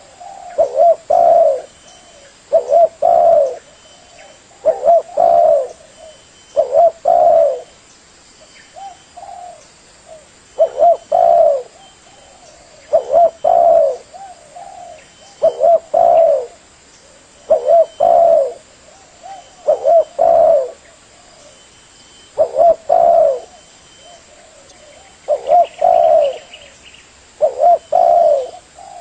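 Spotted dove (tekukur) cooing: a short phrase of low coos repeated about every two seconds, with one fainter phrase partway through.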